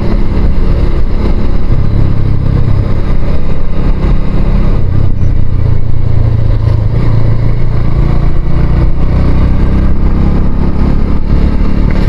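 Motorcycle engine running steadily as the bike is ridden, heard from the rider's position, with a heavy low rumble.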